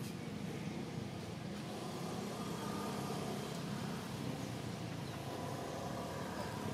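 Steady low rumble of an engine running, with faint steady tones over it and no distinct events.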